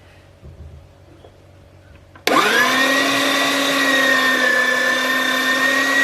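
Electric food processor chopping garlic cloves: the motor switches on about two seconds in, whirs up to speed within a fraction of a second and runs steadily and loud.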